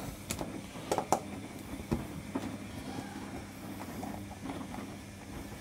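A Torx T20 screwdriver turning out screws from a plastic dryer drum panel: a few sharp clicks, the strongest about a second in, and small scrapes of the bit and loosening screws, over a low steady hum.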